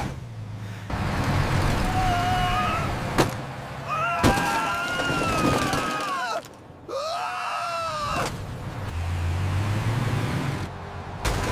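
Vehicle chase sound effects: a low engine hum under a noisy rush, two sharp knocks about three and four seconds in, and high wavering squeals in the middle.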